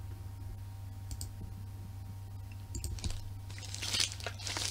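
A few faint clicks, then rustling and handling noise that grows from about three and a half seconds in as a parcel is picked up and handled, over a steady low hum.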